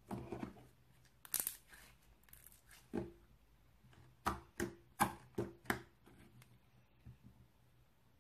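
Clear basic slime being squeezed and stretched by hand, giving sharp clicking, crackling pops, a handful of them in quick succession in the second half.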